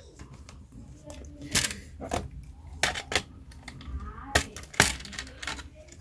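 Scattered sharp clicks and knocks, about seven in six seconds, as hands handle a Dell Latitude 7290 laptop's loosened bottom cover and the tools beside it.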